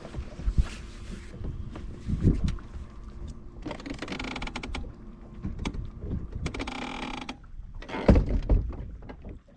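Wind buffeting the microphone in gusts, with a few low thumps. Two short mechanical whirs about four and seven seconds in.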